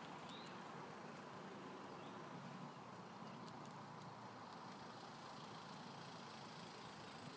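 Faint, steady outdoor background noise with no distinct event. A very faint, evenly repeating high-pitched ticking sits above it through the second half.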